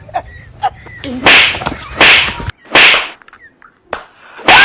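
Three loud swishing lashes, like a whip, about a second apart, then a single short snap. Near the end a loud, high-pitched scream breaks out.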